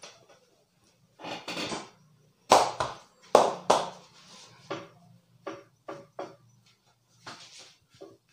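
Percussive hand massage on a man's back and shoulders: about a dozen irregular slaps and claps of the barber's hands, the loudest in the middle, some with a hollow cupped-hand sound.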